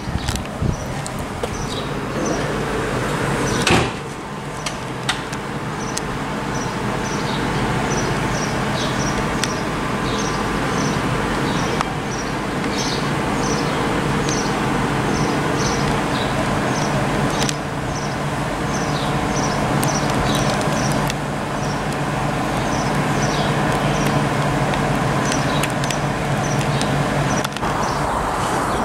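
Class 395 Javelin electric train standing at the platform, its equipment giving a steady low electrical hum, with a sharp knock about four seconds in. A small bird chirps over it again and again.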